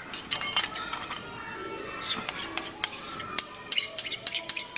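A spoon clinking and scraping against a bowl as a thick, chunky marinade is scraped out over a whole raw chicken in a stainless steel bowl: a run of light, sharp clinks with brief ringing.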